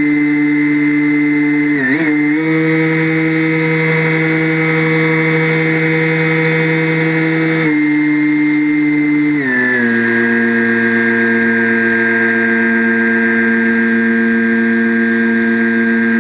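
Model aircraft's motor and propeller running, heard from the onboard camera as a steady pitched hum. The pitch dips briefly about two seconds in, then glides lower about nine and a half seconds in and holds there as the throttle changes.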